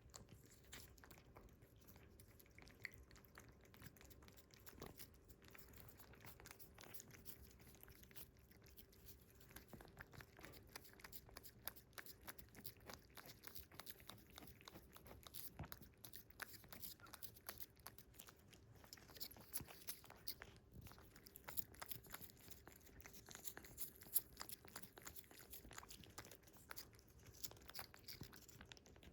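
Cats licking a liquid treat: quiet, rapid wet tongue clicks and smacks, coming thicker and louder from about ten seconds in.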